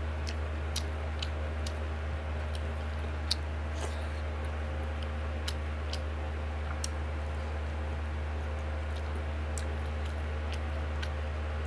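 Close-up eating sounds: scattered short, sharp clicks from chewing and from fingers mixing rice and pork curry on a plate, over a steady low hum.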